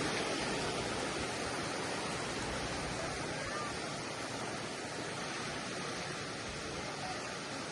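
Sea waves washing onto a beach: a steady rushing surf that eases off slightly over the first few seconds.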